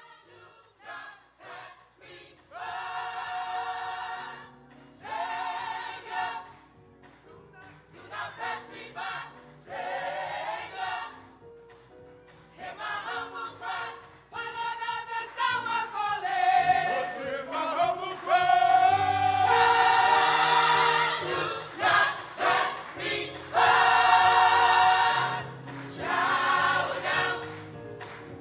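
A choir singing gospel music in long held phrases over sustained low notes, growing louder about two-thirds of the way through.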